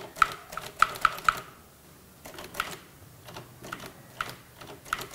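Manual typewriter keys being struck one at a time, each a sharp clack. The strikes come quickly and unevenly for the first second and a half, then pause briefly and come back slower and sparser.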